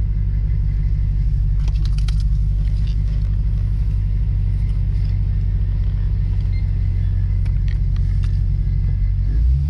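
Lexus RC F's 5.0-litre V8 engine running steadily at low revs with a deep, even rumble as the car is driven slowly. A few light clicks about two seconds in, and the engine note shifts near the end.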